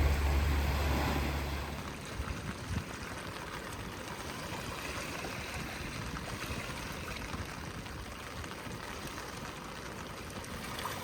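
Running water of a stream, a steady rushing and gurgling. A low rumble stops about two seconds in.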